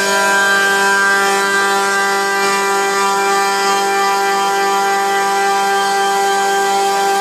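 Home-built CNC router running, its Chinese spindle giving a steady whine over a continuous hiss as it mills oak.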